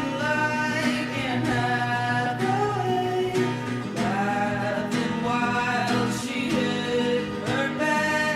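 A song with a sung vocal over acoustic guitar, a slow ballad.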